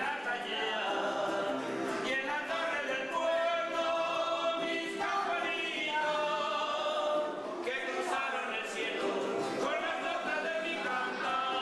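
Choral singing, several voices holding long sung notes that change pitch every second or so.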